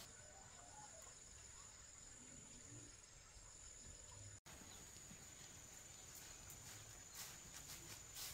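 Near silence: faint background hiss with a steady high-pitched whine, cutting out for an instant about four and a half seconds in.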